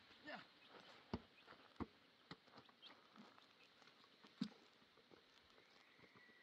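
Near silence, broken by a few faint, scattered clicks and taps. The sharpest comes about four and a half seconds in.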